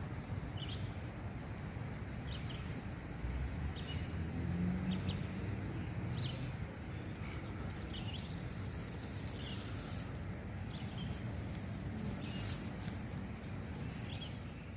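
Flowing creek water making a steady rush, with a small bird giving short chirps about every second.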